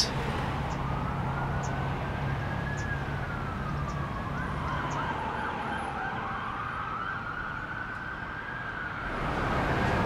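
An emergency-vehicle siren wailing, its pitch slowly rising, falling in the middle and rising again.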